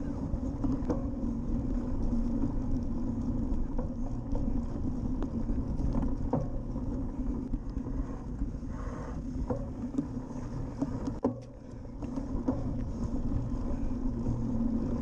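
A cyclocross bike being ridden fast over sand and grass, heard from a camera mounted on the rider or bike: a steady noise of knobby tyres rolling and wind on the microphone, with scattered knocks and rattles as the bike goes over bumps, one sharp knock about eleven seconds in.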